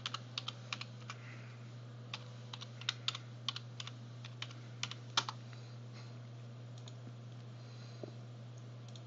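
Typing on a computer keyboard: irregular key clicks for about five seconds, then the typing stops. A steady low hum runs underneath.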